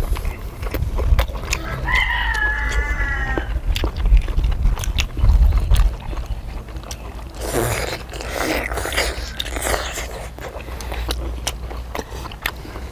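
A rooster crowing once, about two seconds in, behind close-up eating sounds: chewing and short clicks of chopsticks against stone bowls, with a steady low rumble underneath.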